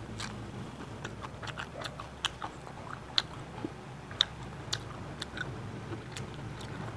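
Chewing on the crunchy chocolate coating of an Aice Crispy Choco ice cream bar: irregular sharp crunches and mouth clicks.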